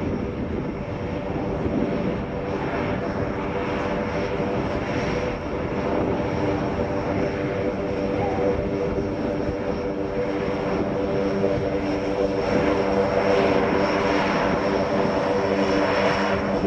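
Lockheed C-130J Super Hercules's four six-bladed turboprops running as the aircraft taxis: a steady propeller drone of several tones with a thin high whine above it, growing slightly louder toward the end.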